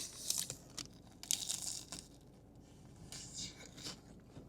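Faint crunching and crinkling from biting and chewing a sugar-coated Korean corn dog, in scattered soft clicks and short rustles.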